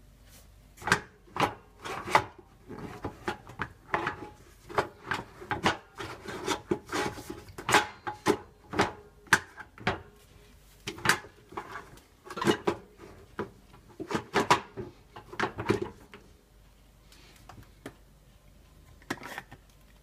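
Irregular knocks, clicks and scraping as the heavily loaded wire rack of a Candy CDIM 5756 dishwasher is handled, its plates and pans knocking together and against the basket. The knocks come quickly for about fifteen seconds and then thin out to a few.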